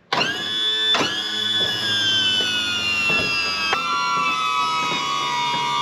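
Background music: sustained guitar chords ringing out, a new one struck about a second in and another just before four seconds.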